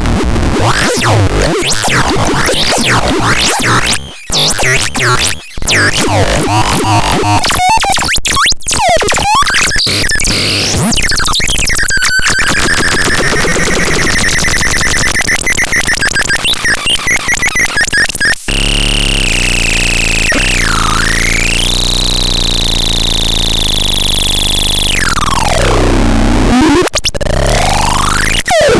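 Synthesizer No. 78002 playing noisy, chaotic electronic sounds with sweeping pitches, then warbling high tones. About two-thirds of the way through it switches abruptly to a sustained buzzing tone that swoops down in pitch and back up twice.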